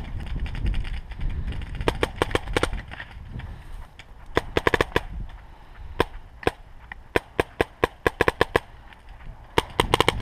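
Paintball markers firing in quick strings of sharp pops, a few shots at a time with short pauses between, and a fast burst near the end. Wind rumbles on the microphone.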